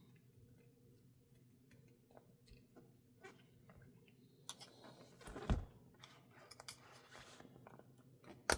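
Hands working on an RC crawler wheel and tire: light scattered clicking and handling noises of small plastic parts, a brief rustle with a soft thump about five and a half seconds in, and a sharp click near the end.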